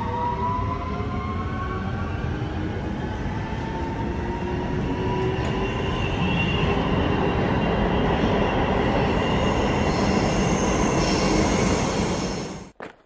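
Metro train running, heard from inside the carriage: a dense rumble of wheels on rails, with the motors' whine rising in pitch over the first few seconds as the train gathers speed, then a steady run. It cuts off suddenly near the end.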